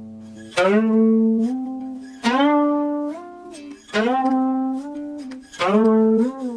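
Background instrumental music on a plucked string instrument. Four strongly plucked notes, about one every second and a half, each held and bent up or down in pitch as it fades.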